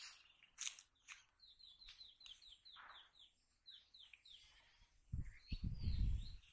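A bird calling: a quick run of short falling chirps, about five a second, with a few more near the end. Low thuds and rumble near the end are the loudest sound.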